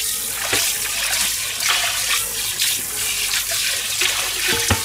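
Kitchen tap running, its water splashing into a frying pan in a stainless-steel sink as the pan is rinsed and rubbed by hand.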